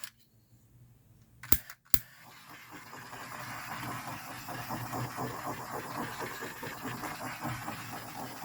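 Butane torch: two sharp igniter clicks about a second and a half in, then the flame catches and runs with a steady rushing hiss that builds over the next second or so.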